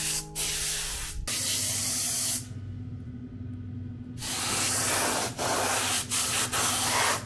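Gravity-feed air spray gun spraying paint in bursts of hiss as the trigger is pulled and released: a long spray, a pause of about two seconds, then several shorter passes.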